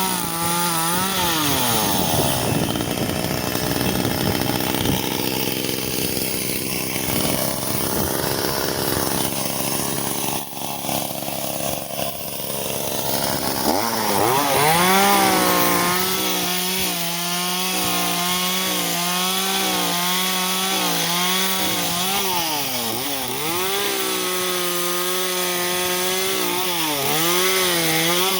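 Echo CS-370 two-stroke chainsaw cutting wood: its engine note drops under load for the first half while the chain grinds through the branch, then it rises and runs at steady high revs, dipping briefly twice near the end.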